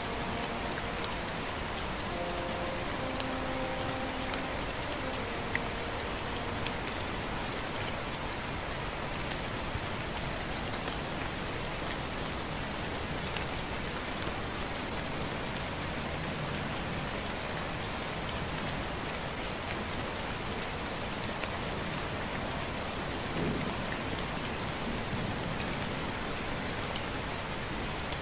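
Gentle, steady rain falling on the river and the ground.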